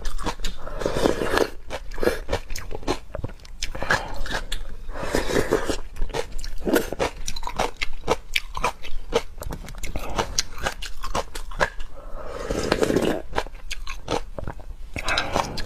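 Close-miked eating of raw marinated shrimp: rapid crunching and wet chewing, with a few longer, fuller wet mouth sounds about a second in, around five seconds and near thirteen seconds.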